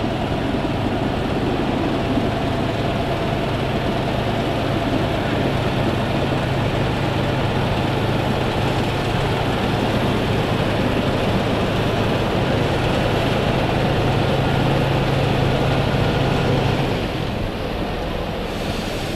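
Heavy diesel engine running steadily, a low drone that eases off about 17 seconds in.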